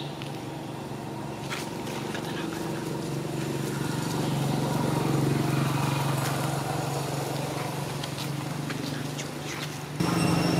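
A steady low motor hum that swells toward the middle and eases off, with a few faint clicks over it. About ten seconds in it jumps abruptly louder.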